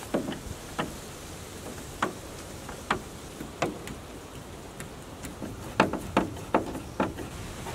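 Irregular sharp knocks and clicks of hard plastic being handled: the plastic bow deck cap and trim of a Coleman HDPE canoe being worked loose by hand, with a quick run of several knocks near the end.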